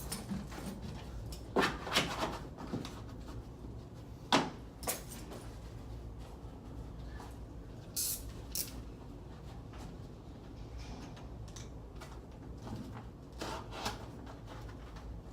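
Wallpaper being handled and pressed up into place overhead: scattered rustles, scrapes and soft knocks, with a few louder ones about two, four and a half, eight and fourteen seconds in.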